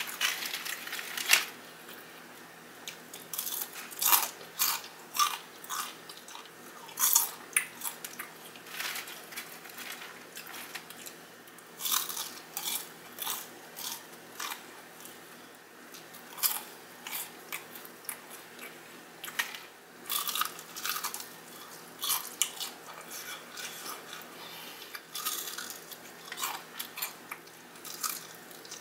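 Close-up crunching and chewing of crispy Popeyes fried chicken: irregular crisp crunches of the fried breading as it is bitten and chewed, with quieter chewing between.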